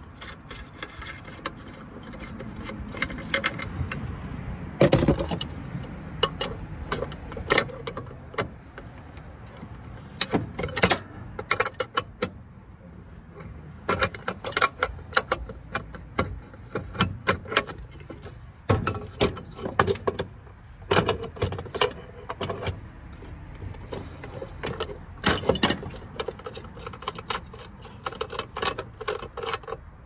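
Small brass connector pieces and metal parts clinking and clattering as they are handled and sorted, in irregular clusters of sharp metallic clicks, some with a brief ring.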